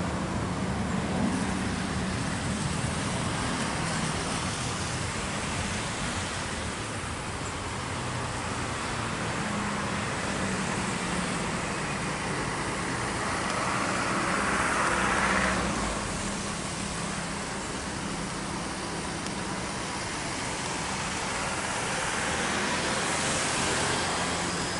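Jet engines of a Boeing 737 airliner at takeoff thrust, a steady roar with a faint low hum as it rolls down the runway and climbs away, swelling a little about halfway through and again near the end.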